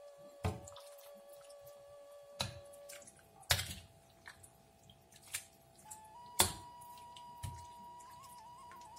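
Steel ladle knocking and scraping against a wok while curry is scooped out to serve: about five sharp clinks, the loudest about three and a half and six and a half seconds in. Faint background music with slow held notes runs underneath.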